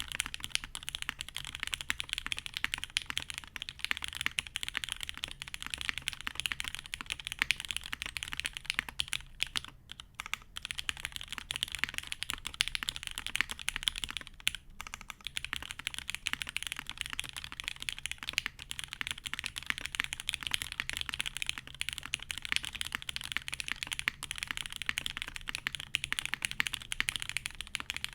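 Continuous fast typing on a GHS.RAR custom mechanical keyboard with lubed, diamond-polished Cherry MX Black linear switches in an undampened aluminium plate and GMK keycaps: a dense stream of keystroke clacks, with brief pauses about ten and fourteen seconds in.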